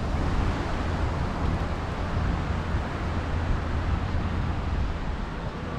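Wind buffeting the microphone: a steady low rumble with a broader hiss above it.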